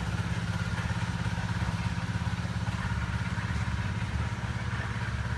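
Small engine running steadily with a fast, even pulse.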